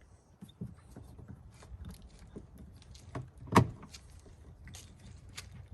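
Scattered light clicks and clatter of a hand rivet gun and trim parts being handled while pop-riveting body panels, with one loud sharp snap about three and a half seconds in.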